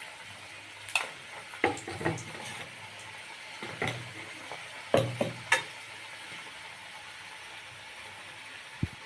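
A spoon clinking and scraping against a bowl and plate as chutney is served, about seven sharp knocks in the first half and then quieter, over a steady background hiss.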